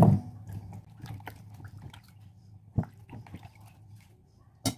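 Hands rinsing squash slices in a plastic basin of water and putting them into an aluminium pot: wet splashing and dripping, with a few sharp knocks, the loudest near the end.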